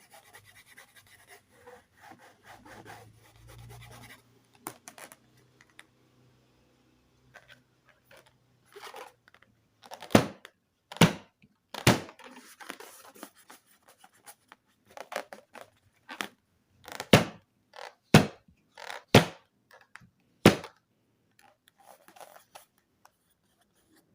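Faint rubbing and scratching, then a series of sharp, loud knocks or thunks, about one a second in two clusters of three and a single one near the end, with soft rustling between them.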